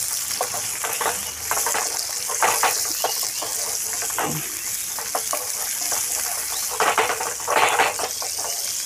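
Chopped onions sizzling in hot oil in a non-stick frying pan, stirred with a wooden spatula that scrapes and knocks against the pan many times, the heaviest strokes near the end.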